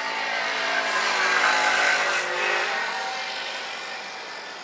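A motor vehicle driving past, its engine and road noise swelling to a peak about one and a half seconds in and then fading away.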